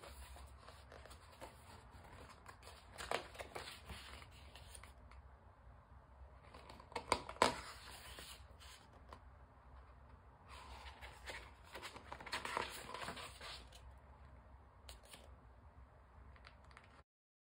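Faint handling of album packaging: paper and plastic rustling and crinkling with scattered taps and clicks, a longer stretch of crinkling about two-thirds of the way through. The sound cuts off abruptly just before the end.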